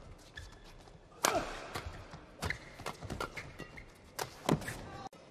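A badminton rally: about six sharp racket strikes on a shuttlecock, spaced roughly half a second to a second apart, the loudest about a second in.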